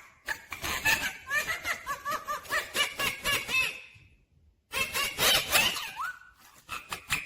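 Indian ringneck parakeet chattering: a rapid run of short squeaky chirps and clicks, breaking off briefly a little past halfway and then starting again.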